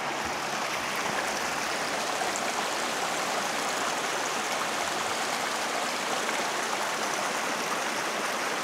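A small forest creek flowing with a steady rush of water, running low with only a little water in its channel.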